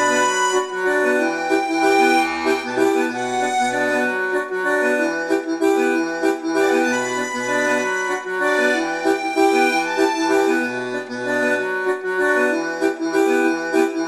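Instrumental theme music: a melody in held notes over a moving bass line.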